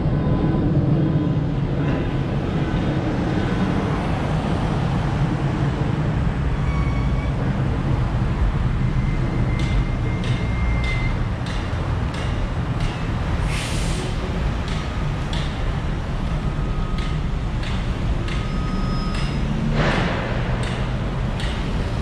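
City street traffic heard from a bicycle, with wind on the helmet camera's microphone: a steady low rumble. From about ten seconds in come scattered sharp clicks, and a few seconds later a brief hiss.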